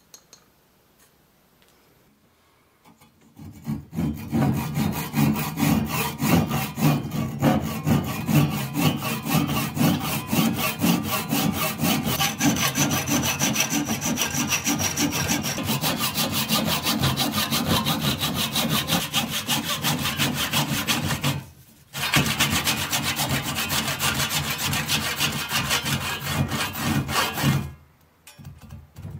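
Hand saw cutting through wood in rapid, even strokes. It starts a few seconds in, pauses briefly about two-thirds of the way through, then resumes and stops shortly before the end.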